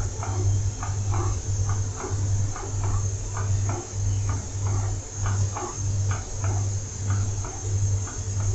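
A spoon stirring thick curry in a pan, with short scraping strokes two or three times a second, over a low hum that pulses about twice a second and a steady high thin tone.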